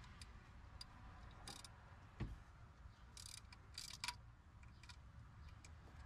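Faint, irregular clicking of a hand ratchet and wrench working a 10 mm bolt, in short bursts, with a dull knock about two seconds in.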